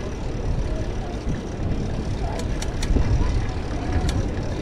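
Fixed-gear bicycle ridden over brick paving: steady low rumble of tyres on the pavers and wind buffeting the microphone, swelling about three seconds in, with a few sharp clicks.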